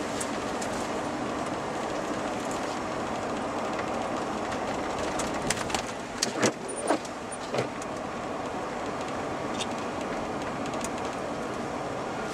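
A truck driving, heard from inside the cab: a steady rushing road and engine noise, with a short cluster of sharp knocks and clicks about halfway through.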